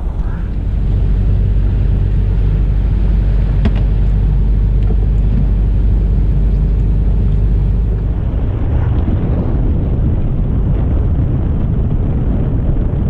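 Fishing boat's engine running with a steady low drone. About eight seconds in it gives way to a noisier rushing mix of engine and water.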